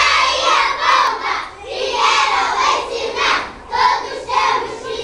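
A group of young children singing and shouting together.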